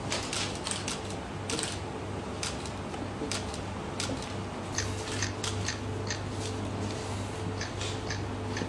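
Camera shutters clicking again and again at irregular intervals, sometimes several in quick succession, as shots are taken of a held pose.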